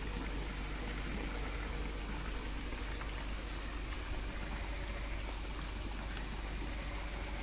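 Crickets and other night insects chirring in a steady high-pitched drone with no breaks.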